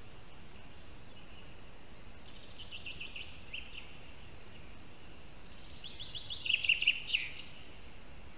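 A bird singing twice: a short run of quick high notes about two and a half seconds in, then a louder, longer run that starts higher, drops, and ends in a quick flourish about seven seconds in.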